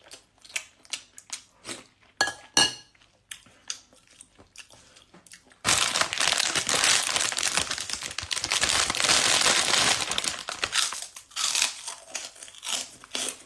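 Eating rice by hand: soft lip smacks and small clicks for the first few seconds. About six seconds in, a loud crinkling rustle starts suddenly, lasts about five seconds, then gives way to a few more small clicks.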